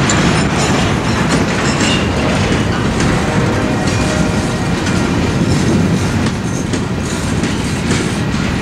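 Covered hopper cars of a freight train rolling past close by: a loud, steady rumble of steel wheels on rail, with a run of clicks as the wheels cross rail joints.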